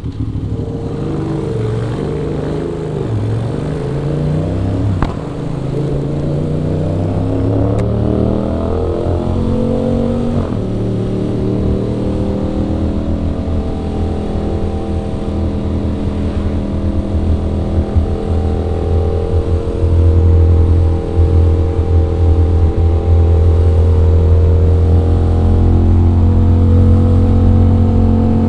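Aprilia RS 660 parallel-twin engine under way: its pitch dips and climbs over the first ten seconds, then holds steady at a constant speed, getting louder about twenty seconds in.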